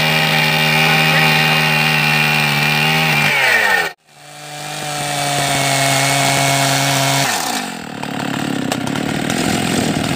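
Gasoline chainsaw run at full throttle through a small log. The revs fall away after about three seconds and the sound breaks off abruptly, then climbs back to full, steady revs. Around seven seconds in it drops to a rougher, lower running.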